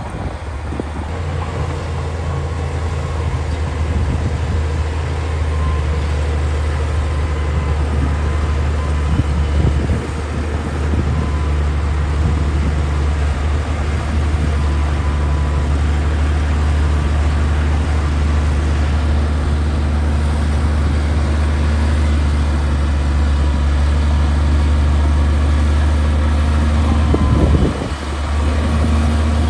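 Heavy diesel engine of earthmoving machinery running steadily at a constant speed. Near the end there is a short knock, after which the engine note settles slightly higher.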